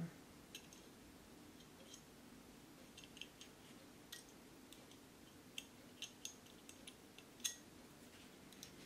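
Faint, scattered small metallic clicks and ticks of pistol parts being handled and seated in a Browning Hi-Power frame as the fire-control parts go in, with one sharper click about seven and a half seconds in.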